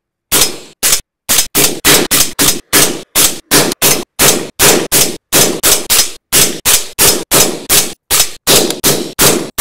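Suppressed AR-15 rifle shots: a run of about thirty single shots, one after another at roughly three a second, each a sharp crack with a short tail that cuts off abruptly before the next. Each shot is fired through a different suppressor.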